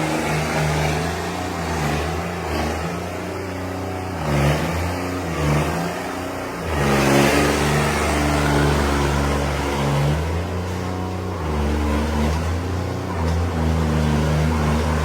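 New Holland tractor's diesel engine, fitted with a modified fuel-injection pump, running hard and revving up and down under load; it picks up sharply about seven seconds in and holds at higher revs.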